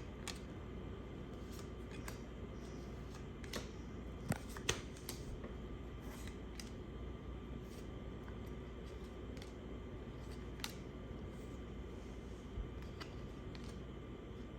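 Scattered small clicks and rustles of a baseball card pack being opened and the cards handled, the two sharpest clicks coming close together about four seconds in, over a steady low hum.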